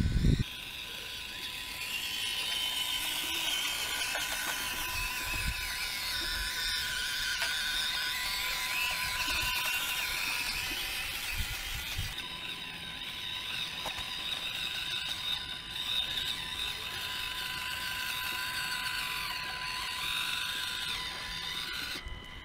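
Axial SCX24 micro rock crawler's small electric motor and gears whining as it drives, the whine wavering up and down in pitch with the throttle.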